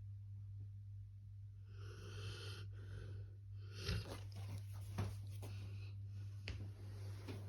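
Sleeping labrador breathing noisily: one long wheezy snore about two seconds in, then irregular clicks and short snuffles. A steady low hum sits underneath.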